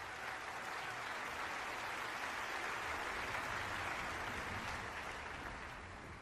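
Audience applauding, a dense, steady clapping that dies down over the last second or so.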